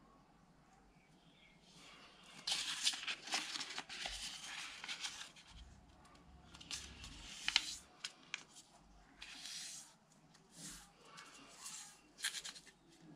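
A sheet of paper rustling and crackling as it is folded by hand and its crease pressed flat, in irregular crisp bursts that start about two and a half seconds in.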